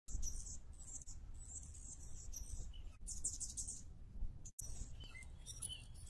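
Short, high, thin chirps and twitters from Anna's hummingbirds, coming in small clusters over a faint low rumble, with a brief dropout about four and a half seconds in.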